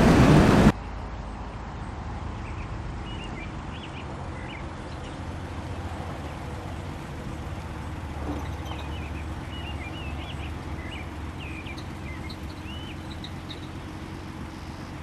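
For the first moment, the in-cab noise of the 1941 Dodge Luxury Liner's flathead six under way, which cuts off abruptly. Then birds chirp, scattered short calls over a quiet, steady low hum.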